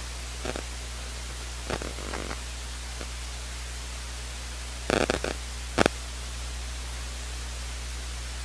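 Steady hiss and low hum of an open broadcast microphone, with a few brief knocks or clicks, the loudest about five seconds in followed by two sharp clicks.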